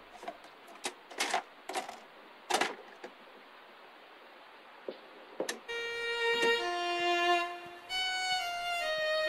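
A handful of sharp clicks and knocks, spaced irregularly, then a violin tune of held notes begins about six seconds in.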